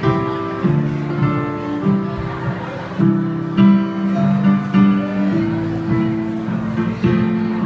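Live solo instrumental music: slow chords ringing out one after another, with no singing.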